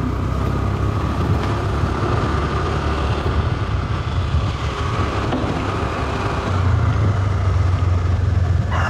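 Motor scooter running steadily as it rides along, with wind and road noise on the microphone, getting a little louder about two-thirds of the way through.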